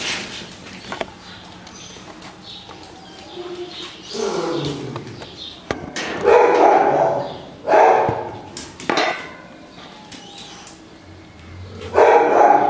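Dog barking in about five short, loud bursts, spaced irregularly.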